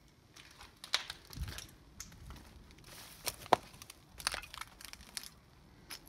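Footsteps crunching on broken glass and rubble, an irregular run of crunches and clicks with one sharp crack about three and a half seconds in.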